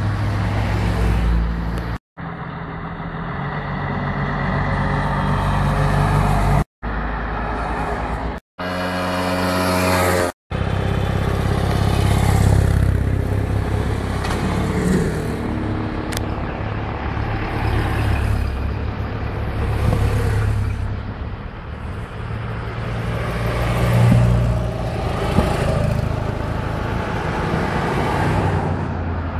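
Vintage cars and a sidecar motorcycle driving past one after another, their engines running and swelling as each goes by. In the first ten seconds or so the sound cuts out abruptly four times.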